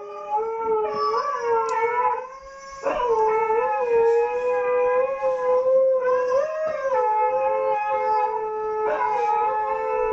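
Dogs howling together in long, held howls, two or more voices overlapping at slightly different pitches with small bends. The howling dips briefly about two seconds in and returns louder just before three seconds.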